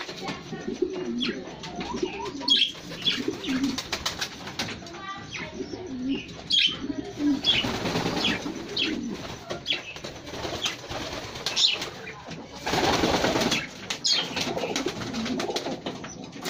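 Domestic pigeons cooing in a loft, with flurries of wing flapping as birds take off and flutter. The longest flapping bursts come around the middle and again near the end.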